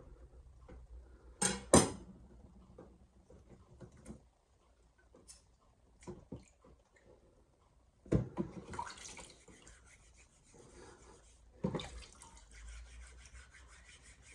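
Two sharp knocks about a second and a half in, then water running and splashing in two spells as a 500-grit Shapton Glass sharpening stone is rinsed and rubbed clean.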